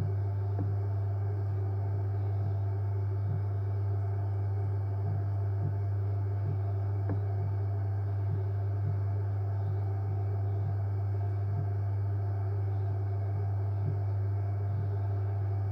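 JW Ratcliffe and Sons electric pottery wheel running at a steady speed: a low, even motor hum with a faint tick repeating about every half second or so.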